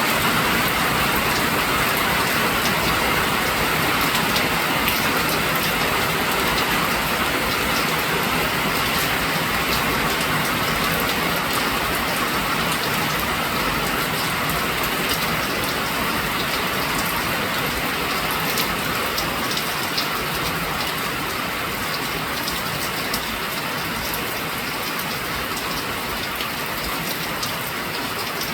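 Steady rain falling, an even hiss with scattered sharp ticks of drops striking nearby surfaces, gradually getting a little softer.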